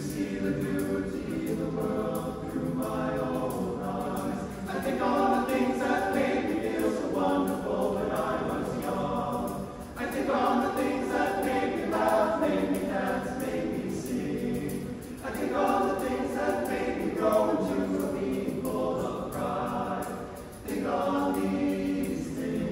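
Men's a cappella choir singing in harmony, unaccompanied, in long phrases with brief breaks about ten seconds in and again near the end.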